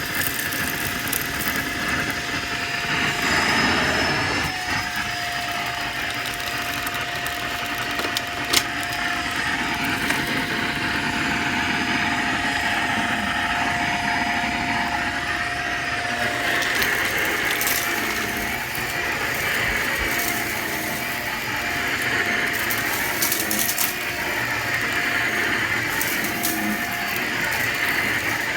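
Vacuum cleaner running steadily with a held motor whine, sucking up crunchy debris that rattles and clicks through it now and then, with one sharp click about eight seconds in.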